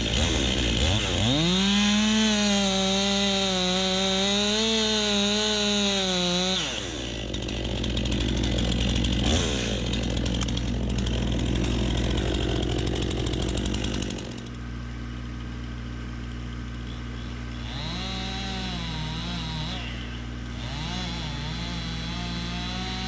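Stihl MS 261 two-stroke chainsaw running at full throttle in a cut, its pitch wavering under load for about six seconds before it drops off. It revs again more quietly twice near the end, over a steady low engine hum.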